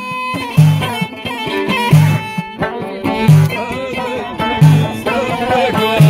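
Amazigh folk music played live on a loutar (plucked lute) and violin, with a frame drum giving a deep beat about every second and a half.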